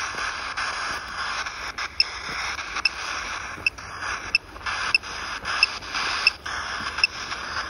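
Steady static hiss from a ghost-meter app playing through a phone's speaker, with short high beeps every second or less and a few clicks.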